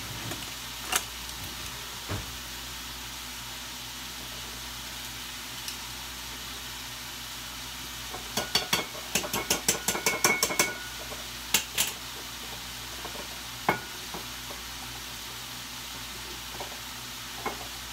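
Food sizzling steadily in a frying pan on a gas burner. About halfway through, a quick run of a dozen or so sharp clicks and clinks as containers are handled at the counter, with a few single knocks before and after.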